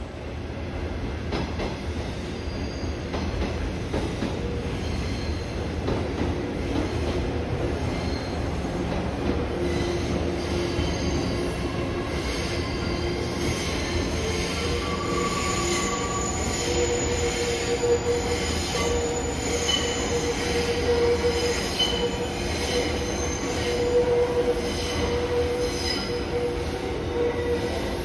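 Electric train running slowly along a station track, its steel wheels squealing in several steady tones that come and go over the running noise.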